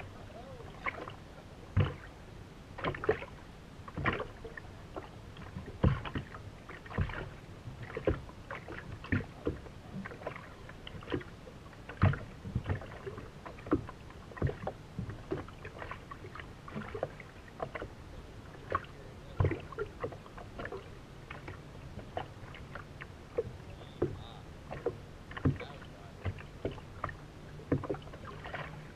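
Water slapping irregularly against the hull of a race powerboat sitting nearly still in choppy water, with sharp slaps about once or twice a second. A low steady hum runs underneath and grows stronger in the last few seconds.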